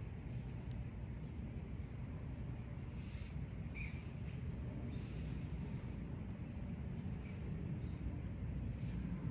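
Birds chirping in short, scattered calls over a steady low background rumble of outdoor ambience.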